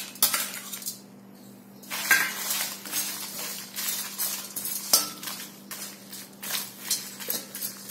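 A perforated metal spoon scraping and clinking against a metal kadhai as dry whole spices (red chillies, coriander seeds, cumin) are stirred and turned. The scraping comes in irregular strokes and stops briefly about a second in.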